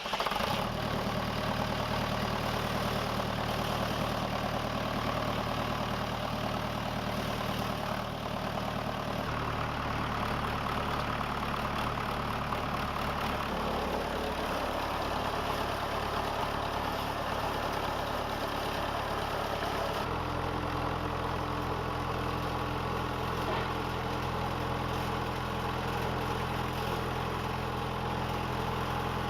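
Diesel engine driving a wood pellet mill, running steadily under load. Its note changes abruptly twice, about nine and twenty seconds in.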